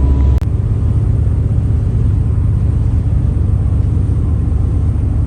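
Steady low rumble of a Viking 64 sportfishing yacht underway at cruising speed: engine drone with hull and water noise. The tone shifts abruptly about half a second in.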